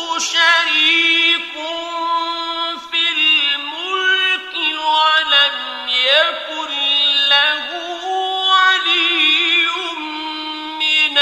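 A man reciting the Quran in a slow, melodic style, with long held notes and wavering ornaments, broken by short pauses for breath between phrases.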